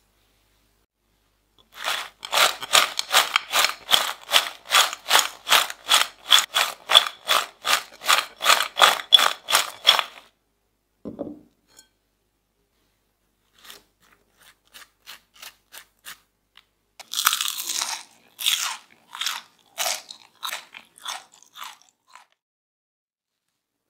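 French fries being tossed in a glass bowl to coat them with seasoning, rattling and crunching against the glass in a steady rhythm of about three shakes a second; after a dull thud, a softer, more uneven run of shakes follows.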